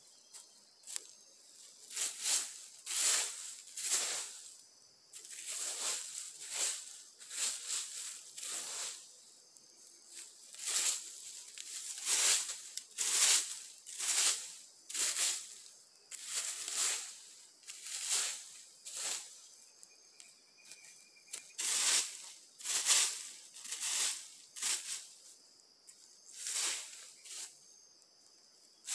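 Dry fallen leaves swishing and crackling as they are swept and scraped off the forest floor by hand and with a machete, in quick uneven strokes about one a second.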